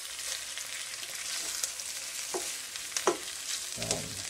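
Boiled pork belly slices and onions sizzling steadily as they fry in a pan, browning to medium brown. A spatula stirs them, with a few short scrapes against the pan about two, three and four seconds in.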